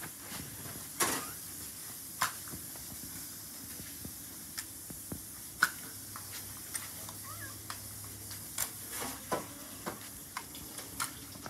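Nerf pistols firing in scattered single pops, one every second or two at irregular spacing, over a steady high hiss.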